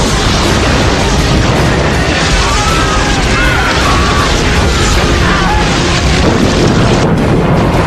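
A loud, continuous rumbling roar mixed with music, with faint wavering high tones in the middle.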